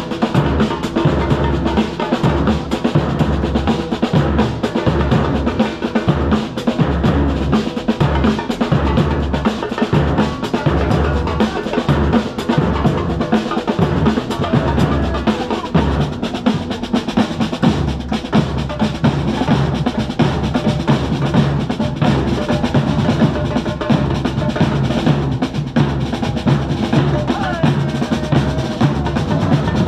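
A drum group playing a dense, driving rhythm: large bass drums beaten with mallets and snare drums played with sticks.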